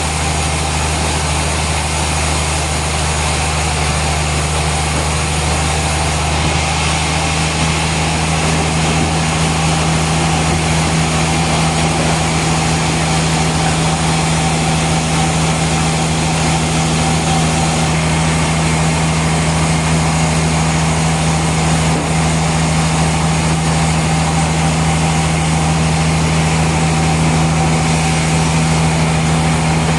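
Heavy machinery running steadily: a constant low engine-like drone with a hiss over it, unchanging throughout.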